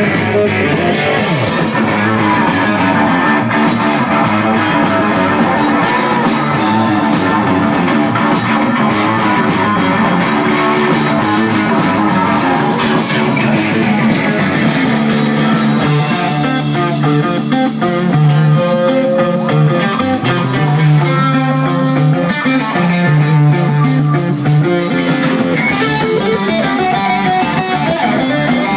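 Live rock band playing loudly: strummed electric guitars over bass guitar and drums.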